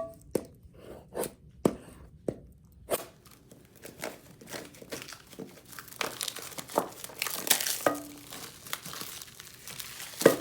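Packaging of a new phone's box being torn and crumpled by hand: a few sharp cracks in the first three seconds, then a long stretch of tearing and crinkling. The box is hard to open.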